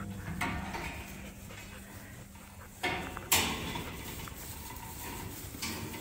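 A flock of ewe lambs milling about on straw bedding, with a sharp metallic clank a little over three seconds in.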